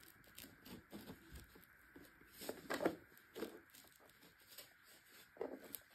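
Faint handling noises: light plastic clicks and rustling as a part is forced onto a tumbler spinner, with a few louder handling sounds about two and a half seconds in and near the end.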